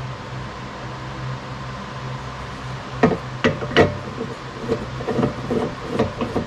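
A steady low workshop hum, then three sharp metal knocks a little past the middle as the lathe chuck holding the maple cup is handled against the headstock spindle. After that come lighter, rhythmic plucked notes of background guitar music.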